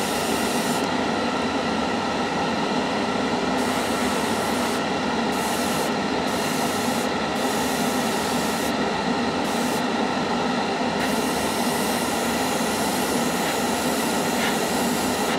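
Airbrush spraying acrylic paint at about 25 psi: a hiss of air that starts and stops in short bursts as the trigger is worked, then runs on continuously for the last few seconds. Underneath is a steady hum.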